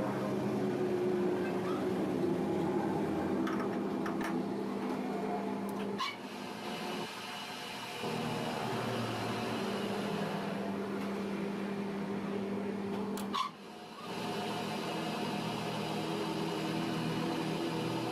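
Metal-working lathe running with a steady motor and drive hum. The hum drops away briefly twice, about six and thirteen seconds in, each time with a sharp click.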